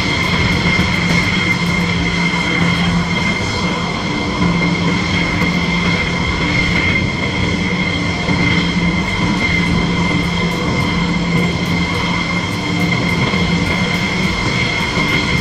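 Several F-16 jet engines idling on the ramp: a steady high turbine whine over a low hum.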